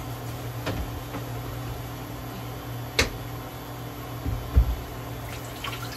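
Portable induction cooktop humming steadily with its cooling fan running under a pan. A sharp click about three seconds in and a low thump a little later.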